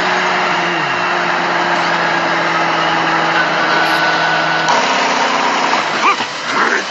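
A vehicle engine runs with a steady, even drone. A short falling glide comes about a second in, and the engine's pitch shifts lower about two-thirds of the way through.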